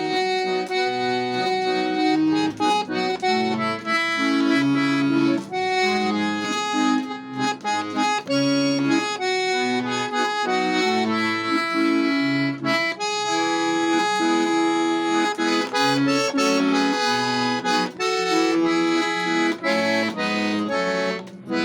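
Accordion playing a melody over chords, with separate bass notes sounding below.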